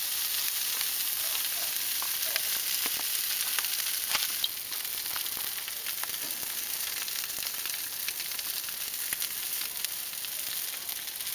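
Two oiled whole herring sizzling on a grill grate over hot charcoal: a steady hiss dotted with small crackles and pops, a little quieter from about four seconds in.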